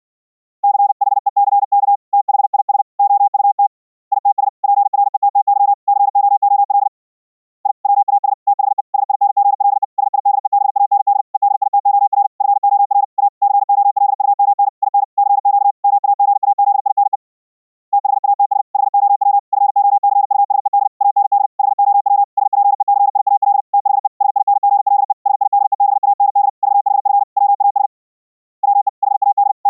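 Morse code (CW) sent at high speed as a mid-pitched audio tone keyed rapidly on and off, received over Mumble internet voice chat. It comes in long runs of characters broken by short pauses about a quarter, a half and most of the way through.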